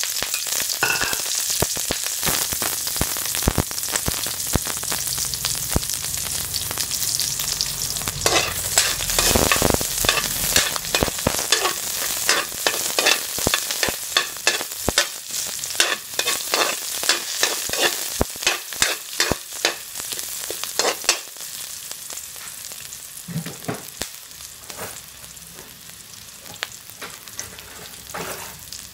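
Sliced onions and garlic sizzling in hot oil in a large metal wok, stirred with a metal ladle that scrapes and clicks against the pan. The sizzle and scraping are loud at first, and after about twenty seconds they die down to a softer sizzle with only a few clicks.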